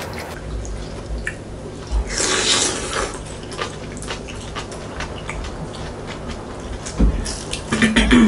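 Table eating sounds: a spoon and chopsticks clicking against bowls and the wet sound of a spoon working through seaweed soup with rice mixed in, with a louder clatter near the end.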